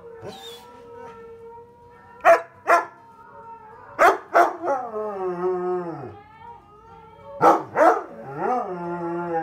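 Husky barking and howling: pairs of short sharp barks, each time running into a drawn-out howl. The first howl slides down in pitch about halfway through; the second rises and holds near the end.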